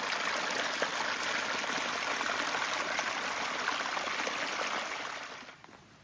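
Steady rushing of a small stream or creek, fading away near the end.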